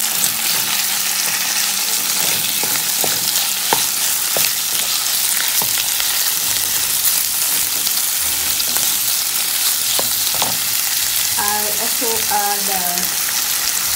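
Diced raw chicken breast frying with onions, garlic and ginger in hot oil in a non-stick pan, with a steady sizzle. A wooden spatula stirs it, knocking and scraping against the pan now and then.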